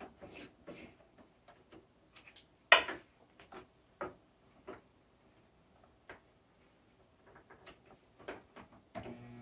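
Scattered light clicks and taps from handling fabric at a sewing machine, the sharpest about three seconds in. Just before the end the sewing machine motor starts to run.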